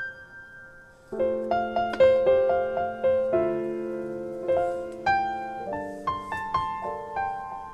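Background piano music: a gentle melody of single notes over sustained chords that change every second or two.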